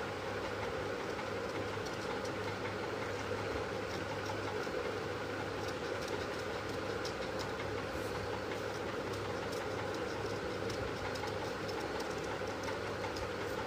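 Large steel scissors snipping through folded paper in a run of faint, short snips, over a steady mechanical hum.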